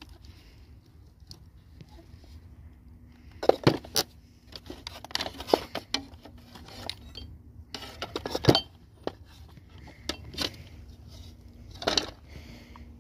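Scrap metal parts clinking and clattering as an old electric drill and its cord are dragged out of a junk pile. Sharp knocks come in scattered clusters starting about three and a half seconds in.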